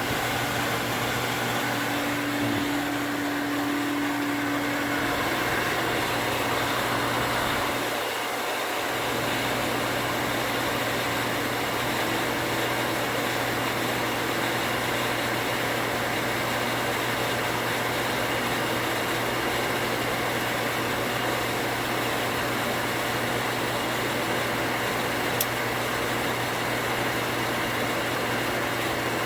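1 horsepower cast iron booster pump's electric motor running loud and steady as it builds water pressure, with no pressure-switch chatter. A single short click sounds near the end.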